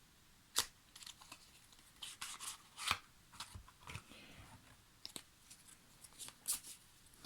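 Cards being handled and laid out on a table: a string of short, irregular snaps and brief rustles, each card flicked or slapped down.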